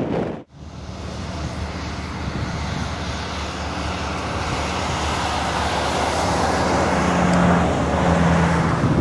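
Boeing 777-300 jet engines running as the airliner rolls out on the runway after touchdown: a steady rushing noise that grows gradually louder after a brief break about half a second in, with a low hum near the end.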